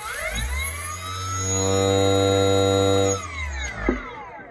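BLDC skateboard motor driven by an e-bike controller, running on a newly found phase and hall-sensor wiring combination. Its whine rises as it speeds up, holds steady for about a second and a half, then falls as it slows, with a sharp click near the end.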